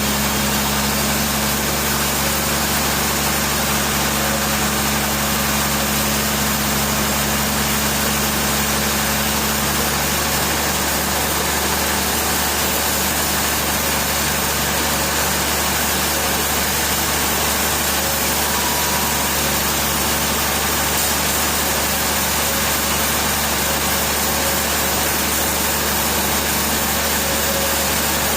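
Machinery running steadily: an even engine-like hum over a constant hiss, with one tone in the hum dropping out about ten seconds in.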